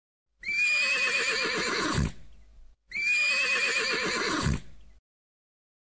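Horse neighing twice, two matching whinnies of about two seconds each, each a quavering high call that drops in pitch at the end.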